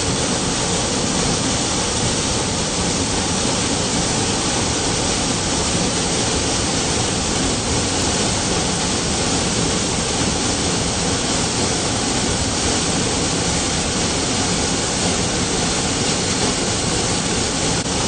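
Large waterfall: a steady, loud rush of falling water that does not let up.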